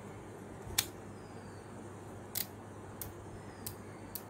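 Sharp plastic clicks, about five of them at uneven intervals, from the length-adjustment knob of a Philips BT3221/15 trimmer's comb attachment clicking through its settings; the motor is off.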